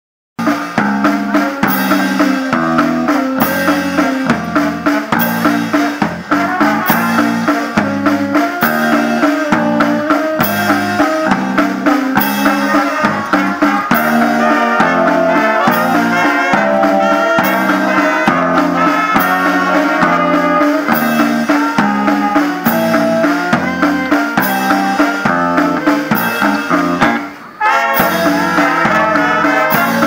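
Wind band playing live: saxophones and trumpets over snare drum, bass drum and electric bass guitar, with a steady beat. The band cuts off briefly a little before the end, then comes back in.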